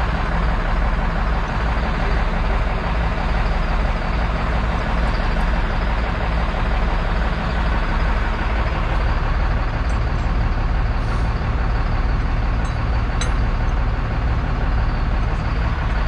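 Diesel engine of a tracked excavator running steadily at a constant speed, a low even hum with no change in pitch.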